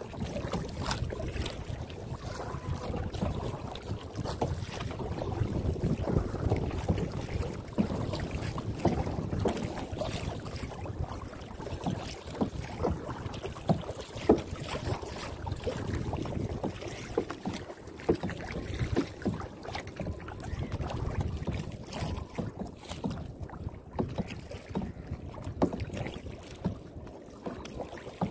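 Kayak paddling: paddle blades dipping and splashing in the water, with irregular knocks and drips and wind buffeting the microphone.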